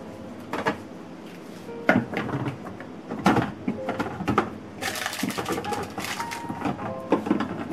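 Household objects being handled and set down: a series of sharp knocks and clicks, several of them clustered a little past the middle, over faint background music.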